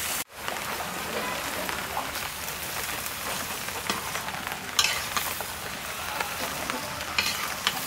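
Taro leaves and stems sizzling in hot oil in a metal pan, stirred and turned with a flat metal spatula that scrapes the pan, loudest about five and seven seconds in. The sound cuts out for a moment just after the start.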